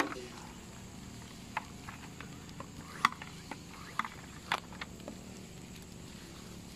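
Steady insect noise with a few short, irregular clicks and rustles from handling a garden hose and spray nozzle over dry leaf litter.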